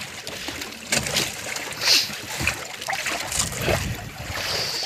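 Water splashing and lapping against a small boat, with scattered knocks and rustles as a caught fish is handled and laid on the wooden deck.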